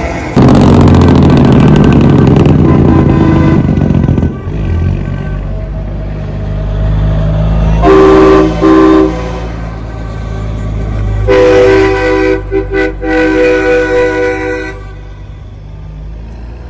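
Semi trucks driving past: a loud diesel engine for the first few seconds, then truck air horns blasting, a quick double blast about eight seconds in and a longer blast followed by several short toots a few seconds later, over a steady engine rumble.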